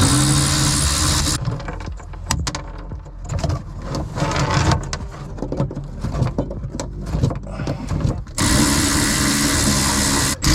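A handheld power tool running steadily for about a second and a half, then again from about eight seconds in, with irregular knocking and clatter between, as the stuck steering cable is cut at.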